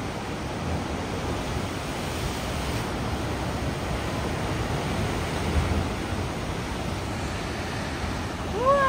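Sea surf surging and breaking against a rocky shore: a steady rushing wash with a deeper swell about halfway through. A short rising-and-falling call sounds near the end.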